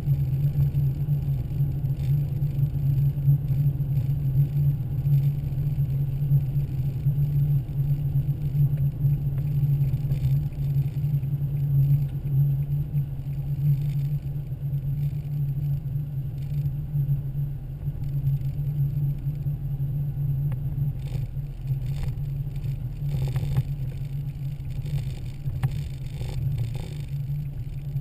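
Car driving at highway speed, heard from inside the cabin: a steady low drone of engine and tyre noise.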